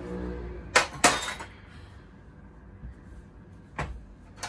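Metal cutlery clinking as knives and spoons are dried with a towel and set down: two sharp clinks close together about a second in, and one more near the end.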